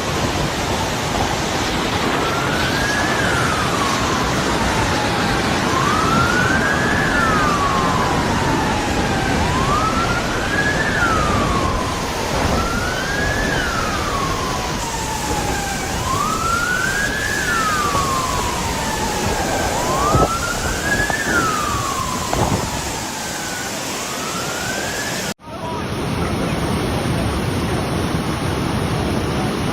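Siren wailing in slow rising-and-falling cycles, about one every three and a half seconds, over a loud steady rushing noise. The siren stops at an abrupt cut near the end, leaving only the rushing noise.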